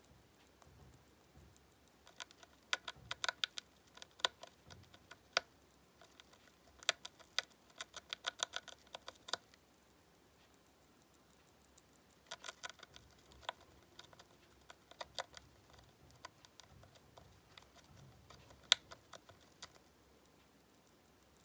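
Syrian hamster gnawing on a chew block: bursts of rapid small clicks and crunches from its teeth, with pauses between them.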